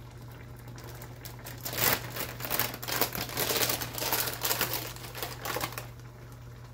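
Hand-turned pepper mill grinding black peppercorns: a quick, crunchy run of clicks starting about two seconds in and stopping shortly before the end, over a steady low hum.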